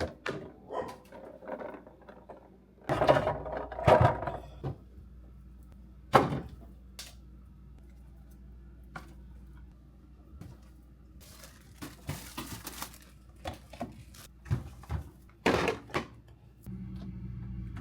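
Knocks, thunks and clatter of containers and fridge drawers being handled and set down, loudest about three to four seconds in, with a short hiss about twelve seconds in.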